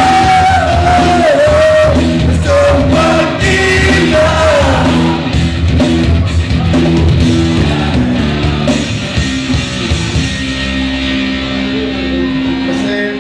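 Rock song sung by a male singer over a band backing; the voice stops about five seconds in and the instruments play on.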